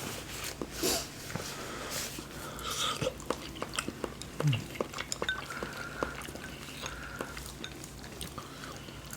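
Eating sounds at a bowl of Korean army stew: utensils clicking and clinking against the dish, with chewing and small mouth noises in between.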